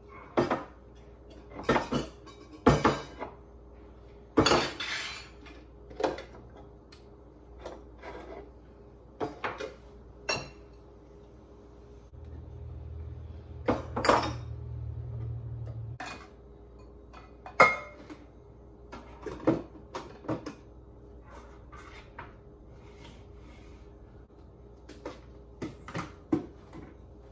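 Glass food jars and lids clinking and knocking as they are lifted off cabinet shelves and set down on a stone countertop: irregular knocks, well over a dozen, with a low rumble for a few seconds in the middle.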